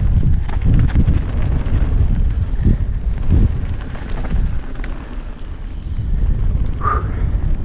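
Wind buffeting a GoPro microphone on a mountain bike riding fast downhill, with the bike rattling and knocking over rough trail. A short high squeak near the end.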